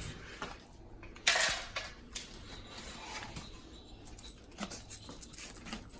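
Kitchen handling sounds: light clinks and rattles of pots and utensils, with one louder clatter about a second in, as tamales are set up to cook.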